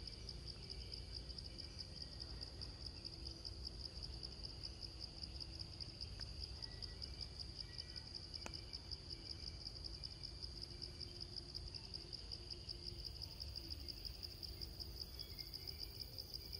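Forest insect chorus: a steady, high-pitched, rapidly pulsing drone of crickets or cicadas, with a faint low rumble underneath.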